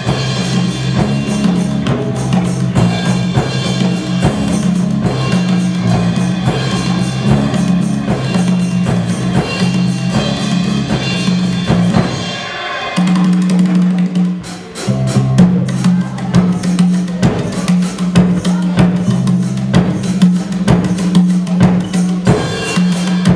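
Instrumental break of an upbeat pop song: a steady drum-kit beat over a bass line, without vocals. The music briefly breaks off a little past halfway, then picks up again.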